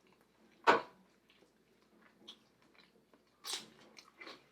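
Mouth sounds of eating: biting and chewing food, with two short, louder smacks or slurps about a second in and again near the three-and-a-half-second mark, and faint clicks between.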